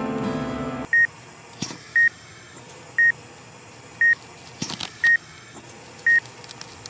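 Patient heart monitor beeping steadily, one short high beep about every second, as a pulse signal. Guitar music cuts off about a second in, and a couple of faint clicks sound between the beeps.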